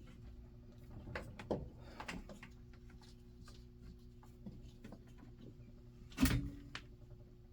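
Soft scattered clicks as a cable is handled and positioned, then one louder sharp knock about six seconds in as the wire is stapled in place, over a steady low hum.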